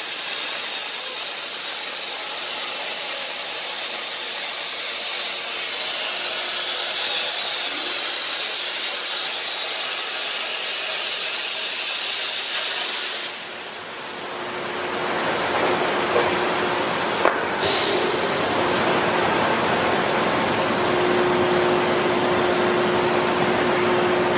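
Plasma cutting torch of a Peddinghaus HSFDB 2500 B CNC plate processing machine hissing loudly with a high whine as it cuts steel plate, then cutting off suddenly about halfway through. After a short lull a different steady machine noise builds up with a low hum, broken by one brief high hiss.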